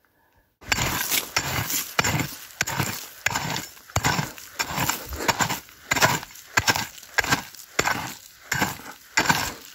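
A hand digging pick striking and scraping into rocky, shaly ground to dig out a metal-detector target. After about half a second of quiet, it chops repeatedly, about two or three strikes a second, loosening soil and rock chips.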